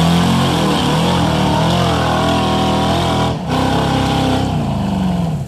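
Rock crawler buggy's engine revving hard under load, the pitch rising and falling as its tyres spin on a steep dirt climb, with a brief break about three and a half seconds in.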